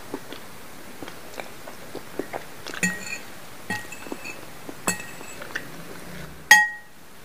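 Metal fork clinking and scraping against a bowl as it twirls squid ink spaghetti, with soft chewing of the pasta between strikes. Several ringing clinks come through, the loudest about six and a half seconds in.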